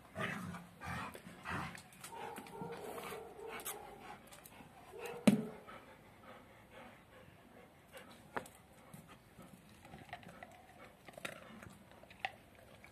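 Dogs panting and sniffing, with one sharp knock about five seconds in and a few faint clicks later.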